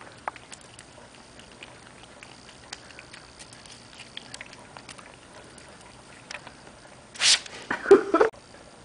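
A cat licking water from the nozzle of a trigger spray bottle, with faint quick clicks of its tongue. Near the end comes a short spray hiss, then a louder jumble of knocks and rustling that cuts off suddenly.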